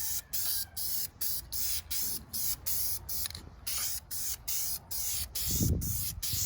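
Aerosol spray-paint can sprayed in short rapid bursts, about three a second, laying a second coat of paint on brake calipers. Low rumbling handling noise joins in near the end.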